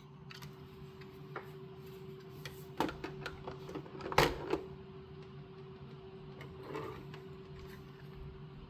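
Hard plastic clicks and knocks from handling the parts of a plastic building-brick model, clustered in the middle, the loudest a little after four seconds, with a softer knock near seven seconds. A steady low hum runs underneath.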